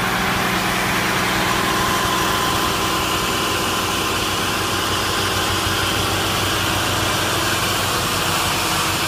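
Fire engine's engine and fire pump running steadily at high pressure, supplying a hoseline flowing water through an assault nozzle.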